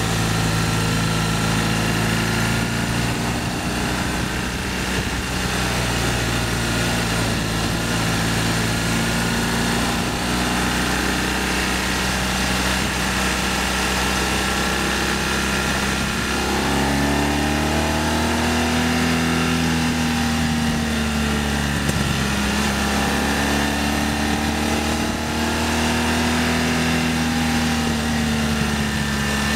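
BMW R1200ST motorcycle's boxer-twin engine running under way, over a steady rush of wind noise. About halfway through, the engine note starts rising and falling.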